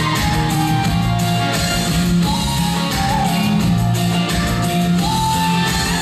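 Music accompanying a stage dance performance, with long held notes over sustained low tones.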